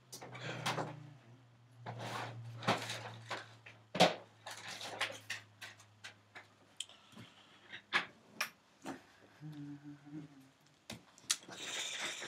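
Scattered clicks, knocks and rustling of objects being handled and moved about, consistent with a laptop charger being fetched and sorted out. A low steady hum fades out about halfway.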